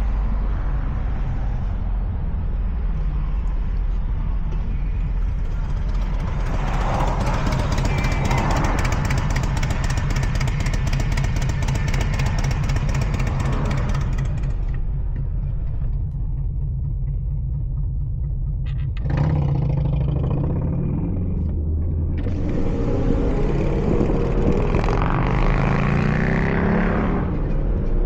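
2017 Mustang GT's 5.0 Coyote V8 through a Corsa Xtreme cat-back exhaust, running on the road. The engine note rises twice as the car accelerates, about two-thirds of the way in and again near the end.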